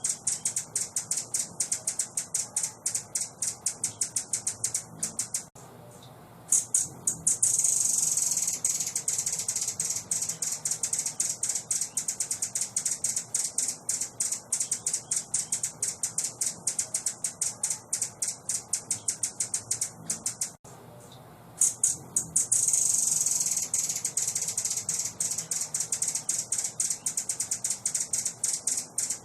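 A small songbird's high, dry chattering call: rapid sharp notes at about five a second. It breaks off twice for about a second, and each time resumes with a denser rattling trill. The sequence repeats about fifteen seconds later, as a looped recording does.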